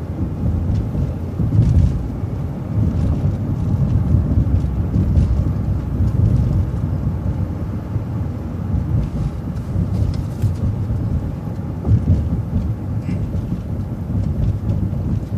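City transit bus driving, its steady low rumble of engine and road noise heard from inside the bus, with a few faint rattles.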